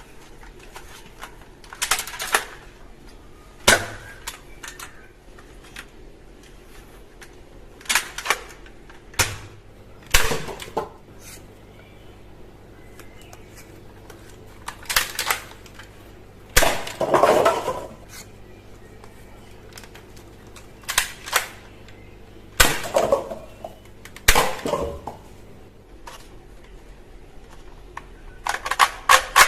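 Plastic toy guns clicking and clattering as they are handled, with sharp snaps every second or two, some in short rattling clusters.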